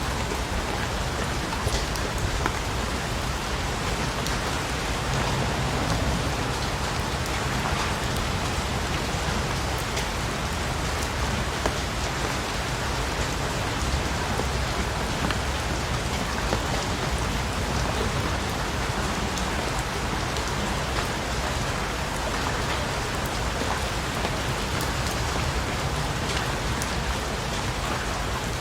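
Steady rain falling on a surface, an even hiss dotted with individual drop taps, over a low rumble.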